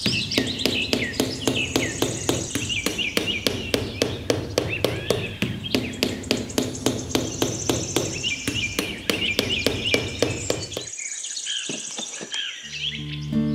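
Birds chirping over rapid, even tapping of about four knocks a second, with a low steady hum underneath; the tapping and hum stop about eleven seconds in.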